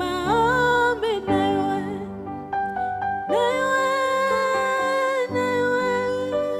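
Slow gospel worship song: a singer sliding into and holding long notes over soft instrumental accompaniment.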